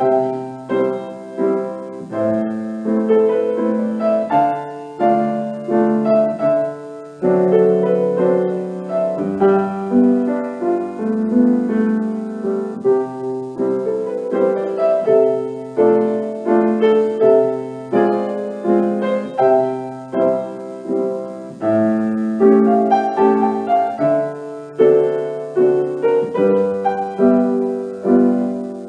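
Grand piano playing a slow, gentle solo piece, chords and single notes struck one after another and left to ring and fade.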